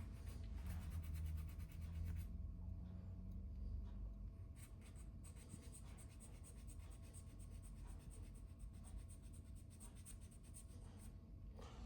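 Faint, rapid scraping strokes of a small replacement signpost for a Lionel 145 gateman being dressed by hand to fit its socket, thickest in the first couple of seconds and again around four seconds in, over a low steady hum.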